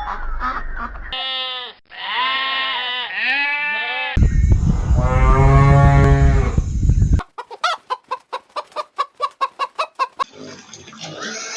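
A run of farm animal calls: a few short calls that rise and fall in pitch, then one long loud call about halfway through. After that comes a chicken's rapid clucking, about six clucks a second, and near the end a different, busier animal sound.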